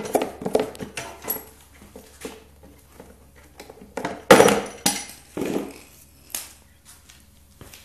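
Clatter and knocks of the pressure washer's protective pump cover being worked off and handled, a string of uneven clicks with the loudest knock about four seconds in, tapering to light ticks near the end.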